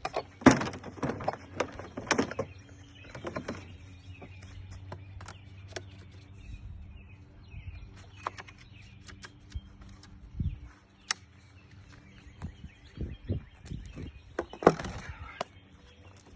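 Folded plastic TuckTec kayak being unpacked and opened out by hand: a string of irregular clicks, knocks and scrapes, with the loudest knocks about half a second in and near the end.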